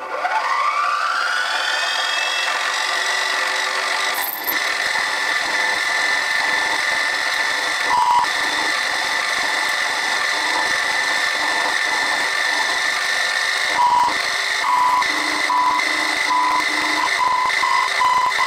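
Chester milling machine spindle starting up with a rising whine that levels off within about a second, then running steadily while an end mill cuts aluminium. The cutting noise comes in about four seconds in, and short repeated tones break in about eight seconds in and again from about fourteen seconds on.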